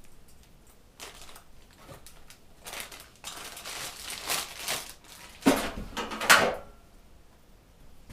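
Parts and packaging being handled: rustling, crinkling and light clattering, with two louder rustles about five and a half and six seconds in.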